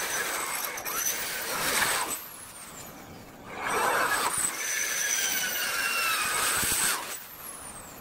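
Hand-held electric drill boring into metal. It runs in two spells: one stops about two seconds in, and the other starts about halfway through and stops near the end, with a whine that shifts in pitch as the bit bites.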